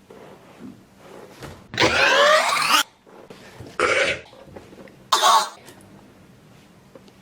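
A man coughing three times, the sound heavily distorted with sliding, warped pitch: a long cough about two seconds in, then two shorter coughs about four and five seconds in.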